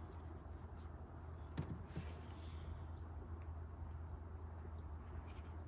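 Quiet background with a steady low hum, a faint knock about a second and a half in, and a few short, faint bird chirps.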